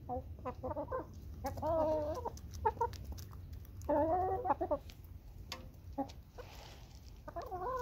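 Hens clucking, with three drawn-out, wavering calls, amid many short sharp clicks of beaks pecking dried mealworms from a hand and off the dirt.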